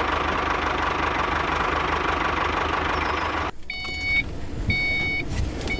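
The small motor of a homemade miniature tractor running steadily with a low, rapid pulsing, then cutting out about three and a half seconds in. Two short electronic beeps follow, about a second apart.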